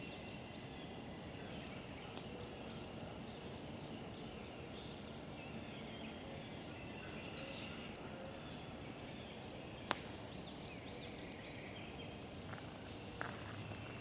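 Outdoor woodland ambience: birds chirping intermittently over a steady background hiss, with a single sharp snap about ten seconds in and a few light ticks near the end.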